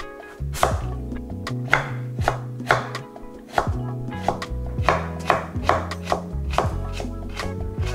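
Kitchen knife cutting radish and carrot into thin strips on a wooden cutting board, an uneven series of crisp knocks of the blade through the vegetable onto the board, about two a second.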